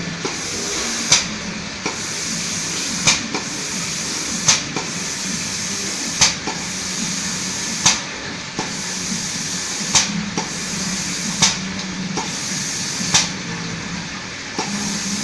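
Automatic spray-painting machine coating a toy gun: a steady hiss of compressed air and paint from its spray gun over a low machine hum, with a short sharp air burst about every one and a half to two seconds.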